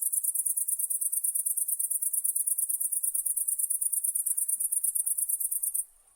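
A night insect singing a continuous, very high-pitched trill made of rapid even pulses, about a dozen a second. It pauses briefly near the end, then starts again.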